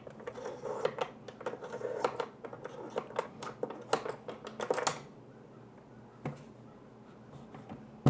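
Quick run of small hard clicks and taps as the small parts of a 1/6 scale miniature vending machine are handled, for about five seconds, then a single click near the end.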